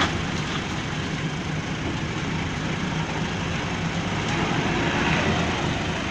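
Steady vehicle engine and road noise, with no sudden events.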